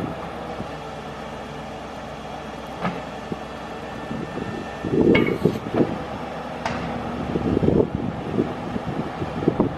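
Ford F350 Super Duty's 6.2-litre gas V8 idling steadily. Wind gusts buffet the microphone about five seconds in and again near eight seconds, and a couple of sharp clicks sound in between.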